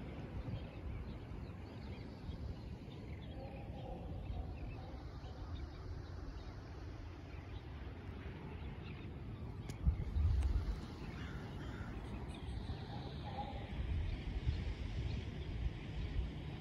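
Shoreline ambience: a steady low rumble with a few faint distant bird calls, about four seconds in and again near the end. A brief louder rumble comes about ten seconds in.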